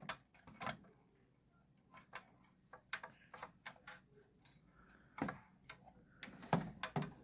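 Scattered light clicks and taps of hands working at a loudspeaker's wire connections while the large 6.5-inch driver is disconnected, with a few louder knocks about five seconds in and near the end.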